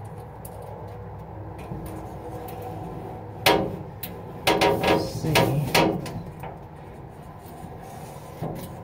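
A squeaky metal hinge being worked back and forth, squealing about five times between three and a half and six seconds in, just after a bead of penetrating lubricant has been laid along it.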